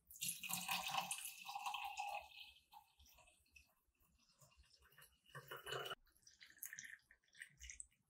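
Sparkling water poured into a glass tumbler for about the first two and a half seconds, then the drink fizzing and crackling in the glass.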